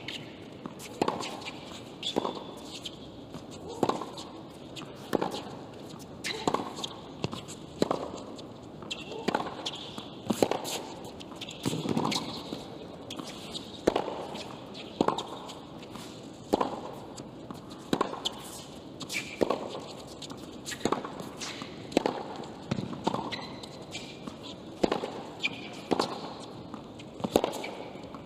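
A long tennis rally on a hard court: the ball is struck back and forth with a sharp pop about every second and a half, with short high sneaker squeaks between some of the shots.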